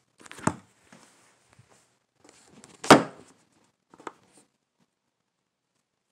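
Close handling noise: rustling with three sharp knocks on a table, the loudest about three seconds in, as the phone and tackle are moved about.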